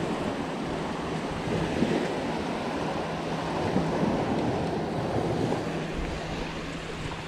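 Small waves breaking and washing up on a sandy beach in a steady surge, with wind on the microphone.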